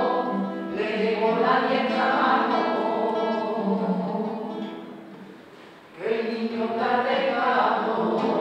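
A small church choir singing a devotional song to Jesus the Nazarene. One phrase fades out about five seconds in, and the next begins about a second later.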